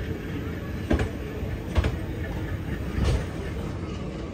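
Passenger train coaches rolling past at close range: a steady rumble of wheels on the rails, broken by a few sharp clacks about a second apart.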